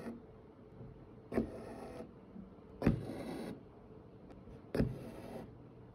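Hand stitching with a needle and single-strand cotton floss through thin canvas stretched in an embroidery hoop: three stitches about a second and a half apart, each a sharp pop followed by about half a second of scratchy sound as the thread is drawn through.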